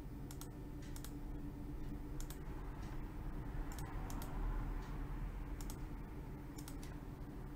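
Scattered, irregular clicks of a computer mouse, over a steady low hum.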